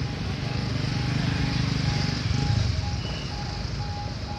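A motor vehicle's engine running with a low rumble that swells briefly in the middle, over a string of short, same-pitched beeps repeating about twice a second.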